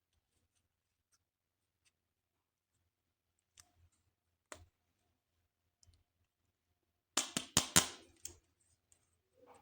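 Plastic toys and packaging being handled: a few scattered sharp clicks, then a quick run of about half a dozen louder clicks and taps late on.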